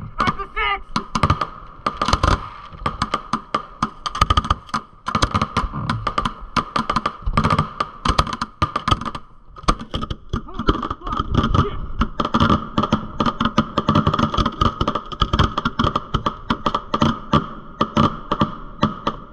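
Aerial fireworks display firing: a rapid, continuous barrage of bangs and crackles as shells launch from mortar tubes and burst overhead, with a steady high tone underneath.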